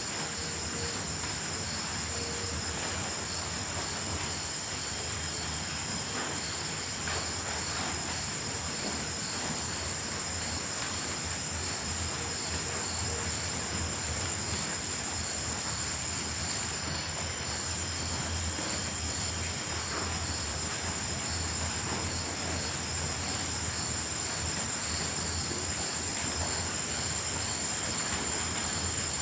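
Night chorus of crickets and grasshoppers: one insect trilling in a continuous high-pitched drone while another chirps in a regular pulsing rhythm, over a low steady hum.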